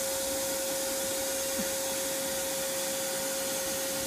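Vacuum running steadily, drawing air through a long PVC pipe extension held up into a tree to suck up bees. It makes an even rush of air with a constant whine.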